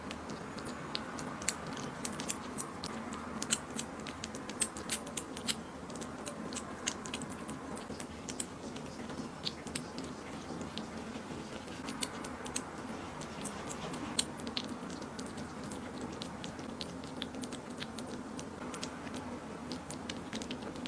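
A kitten eating wet food from a dish, recorded close up: many quick, irregular wet clicks of chewing and licking.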